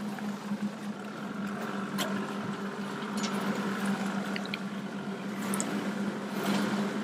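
Boat's outboard motor idling with a steady hum, water lapping against the aluminium hull, and a few light knocks.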